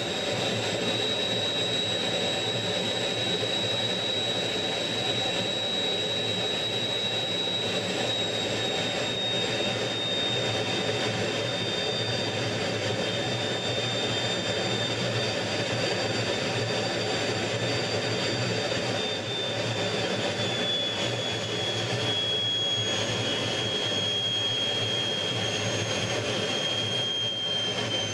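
MiG-15 jet fighter's centrifugal-flow turbojet running in flight: a steady high whine over a rushing noise. The whine sinks slowly in pitch throughout, as the engine eases back while the jet descends toward a runway.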